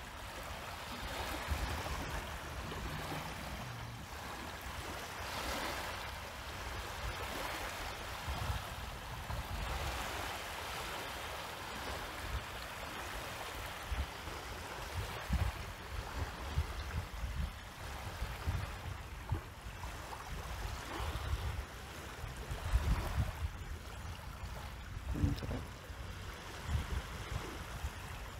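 Sea water washing and lapping, an even hiss that swells and fades every few seconds, with low rumbles of wind on the microphone through the second half.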